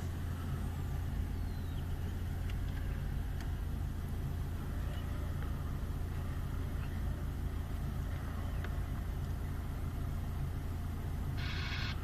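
VW Golf GTI's engine running steadily, a constant low rumble with no music. Near the end comes a short higher-pitched buzz.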